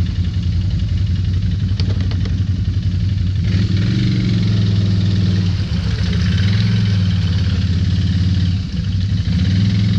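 Can-Am ATV engine running, its throttle picking up about three and a half seconds in, after a restart has cleared the limp mode caused by flood water reaching the ECU.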